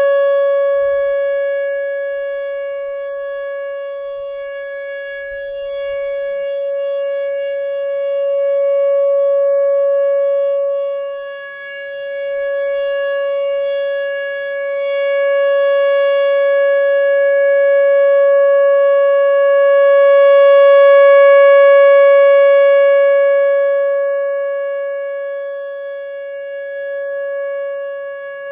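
Whelen WPS-3016 electronic outdoor warning siren sounding a steady, single-pitch alert tone, its loudness swelling and fading several times.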